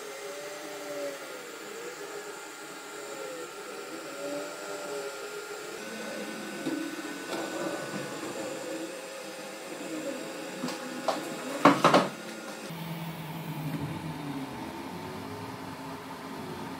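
Stepper motors of a homemade 3D printer whining as the print head traces a circle on the bed, the pitch rising and falling in repeated arcs. A short cluster of sharp knocks about two-thirds of the way through is the loudest sound.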